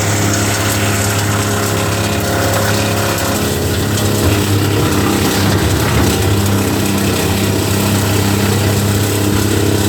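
Linddana TP160 wood chipper running steadily: a loud, even engine hum under the rushing noise of the machine.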